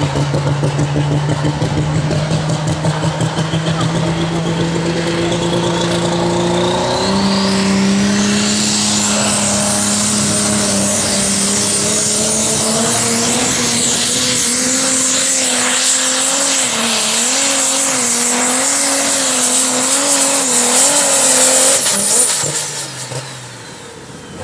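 Competition pulling tractor's engine running hard under load on a pull. Its note steps up about seven seconds in and a high whine climbs and holds above it. The pitch wavers for several seconds, then the sound falls away sharply about two seconds before the end.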